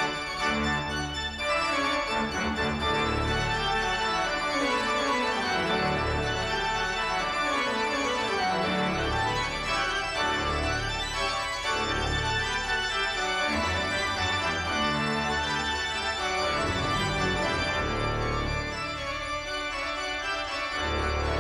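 Organ music at a steady, full level: sustained chords over a pulsing bass, with quick runs falling in pitch.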